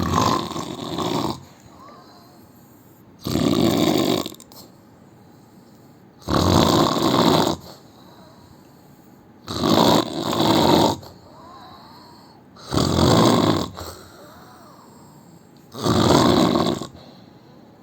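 A man snoring in a slow, regular rhythm: six snores, about one every three seconds, each lasting a second or more.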